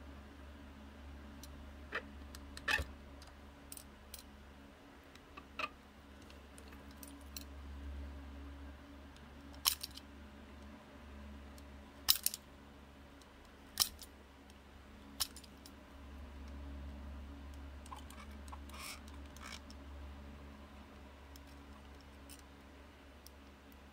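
Scattered sharp clicks and taps of a plastic utility knife and its blade being handled on a workbench, a few of them louder, over a steady low hum.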